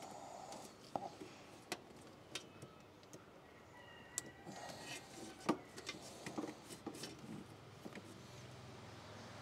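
Hand tools and engine parts being handled: faint, scattered clicks and light knocks, about half a dozen, the sharpest about five and a half seconds in.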